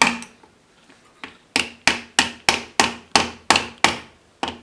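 A hammer tapping a locating bush (dowel) into a motorcycle engine's crankcase. There is one blow, a pause of over a second, then a quick run of about eight taps at roughly three a second, and one more near the end.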